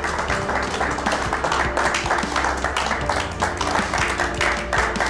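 A group of people applauding with fast, uneven clapping, over background music.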